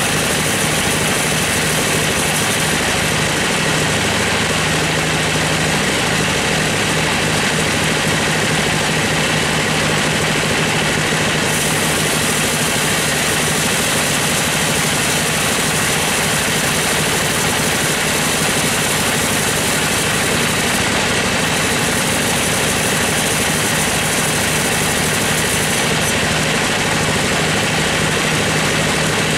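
Sawmill bandsaw running and ripping through a squared gmelina (white teak) beam: a steady, loud blend of machine drone and sawing hiss. The high hiss grows brighter about a third of the way in and dips briefly twice near the end.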